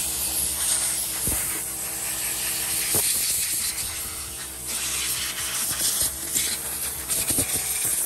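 Compressed air hissing from a handheld air blow gun, on and off, blowing metal drilling and rivet fragments out of a van's rear door edges and hinges so they can't cause rust spots. A few light knocks come through the hiss.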